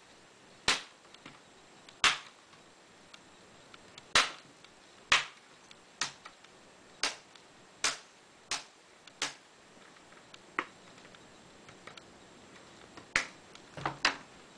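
Plastic snap clips of a Dell Inspiron 15 5547 laptop's screen bezel popping loose one after another as it is pried off by hand: a dozen or so sharp clicks at irregular intervals, roughly one a second.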